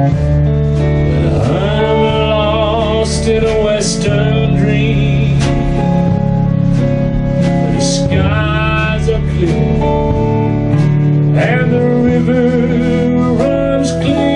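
Live country band playing: a male lead vocal over electric guitar, electric bass and drums.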